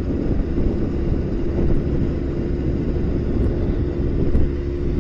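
Motorcycle engine running steadily at cruising speed, with wind noise rumbling heavily over the microphone.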